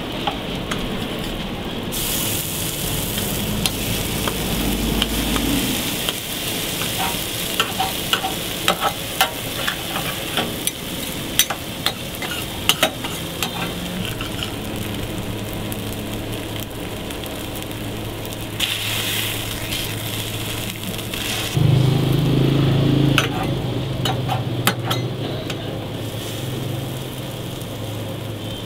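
Longganisa burger patties frying on a flat-top steel griddle: a continuous sizzle with frequent sharp pops and crackles.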